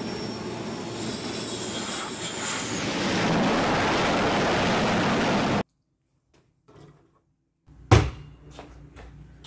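Jet fighter landing on an aircraft carrier deck: a steady jet-engine roar with a high whine, swelling about three seconds in, then cutting off suddenly. After a short quiet there is a single sharp thump near the end.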